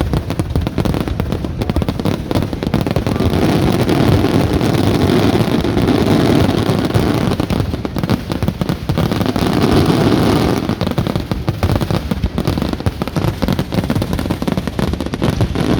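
Aerial fireworks going off in a dense, continuous barrage of rapid bangs and crackles, with heavier rumbling swells of booms twice along the way.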